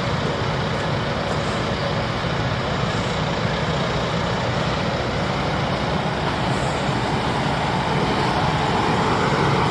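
Heavy diesel construction machinery running steadily: a dump truck's engine running close by as it comes up to the excavator to be loaded.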